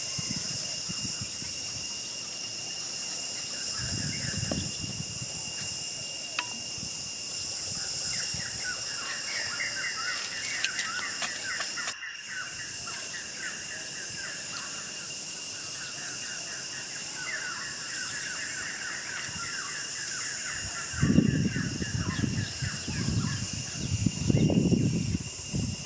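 Insects droning steadily, with birds chirping in rapid runs of short notes. A few low rumbling bursts come in over the last few seconds.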